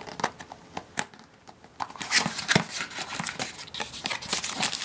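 A small cardboard box being opened by hand: a few sharp clicks and scrapes from the flaps, then bursts of crinkling from the plastic bag inside being handled.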